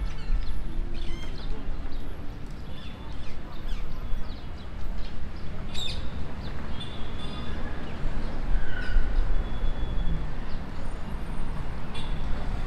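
Park ambience: small birds chirping and whistling in short scattered calls over a steady low rumble.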